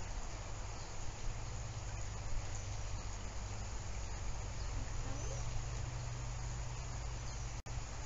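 Steady outdoor ambience through a live-cam microphone: an even hiss with a low hum underneath and a few faint chirps. The sound cuts out for an instant near the end.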